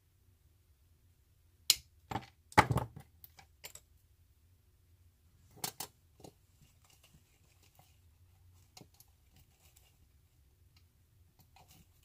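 Artificial flower stems being handled and set into an arrangement: a quick run of sharp clicks and knocks about two to four seconds in, another near six seconds, then faint rustling and ticking.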